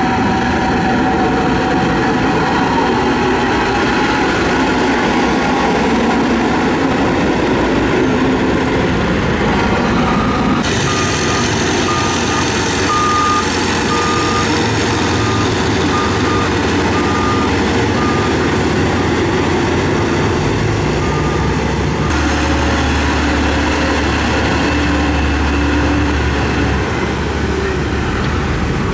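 Diesel engines of heavy road-construction machines running steadily, the sound changing abruptly twice. In the middle stretch a reversing alarm beeps, about once a second.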